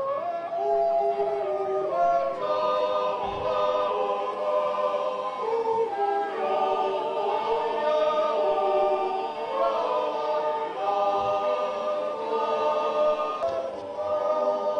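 Choral singing: several voices hold long notes together in harmony, moving to a new chord every second or two.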